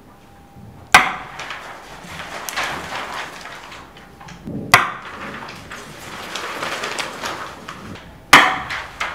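Three loud, sharp knocks, evenly spaced about three and a half seconds apart, each ringing out briefly, with softer rustling between them.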